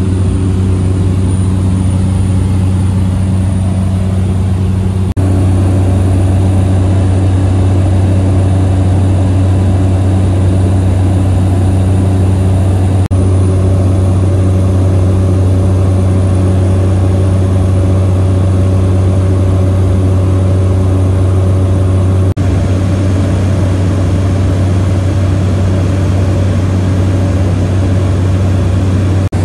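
Cabin noise of a Cessna 208 Grand Caravan in cruise: the single turboprop engine and propeller make a loud, steady low drone with a hum above it. The tone shifts slightly three times.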